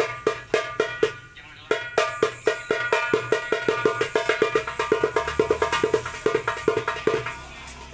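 A 9-inch darbuka with a Remo head is played by hand in a sound check, giving sharp ringing strokes. A rhythm of strokes breaks off briefly a little over a second in, then a fast, dense run of strokes follows and thins out near the end.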